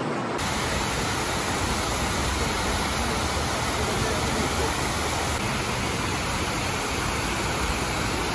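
Steady rush of water pouring down the walls of the 9/11 Memorial reflecting pool and splashing into the basin. It starts abruptly about half a second in.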